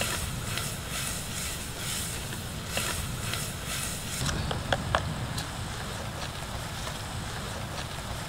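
Wind buffeting the microphone: a steady low rumble under a faint hiss, with a few light clicks.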